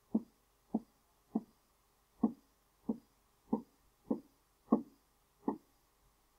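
Nine dull taps on an interactive whiteboard's surface as tally marks are drawn on it stroke by stroke, about one every two-thirds of a second.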